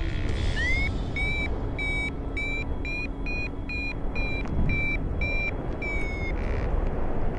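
Paragliding variometer beeping a climb tone: about ten short, evenly spaced high beeps, the first sliding up in pitch, the rest rising slightly and then easing down before the beeping stops near the end. Steady low wind rumble on the microphone underneath.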